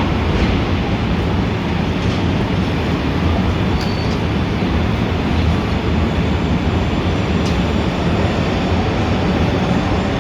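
Dense city traffic ambience: a steady, unbroken din of street noise with a strong low rumble.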